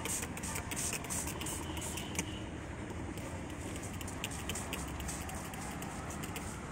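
Hand spray bottle squirting liquid onto plants in many short hissing bursts in quick succession, over a low steady rumble.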